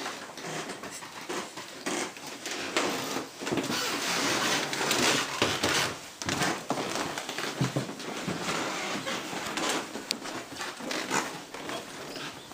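Footsteps and rustling handling noise while walking through rooms, with many scattered soft knocks.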